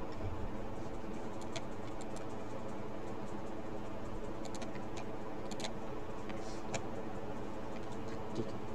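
Scattered light clicks of a computer mouse, a dozen or so at irregular intervals, over a steady electrical hum.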